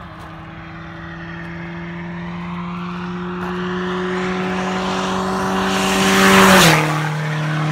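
A car comes toward the listener down the highway with a steady engine note that grows louder, then passes at speed with a rush of tyre and wind noise about six and a half seconds in. The pitch drops sharply as it goes by.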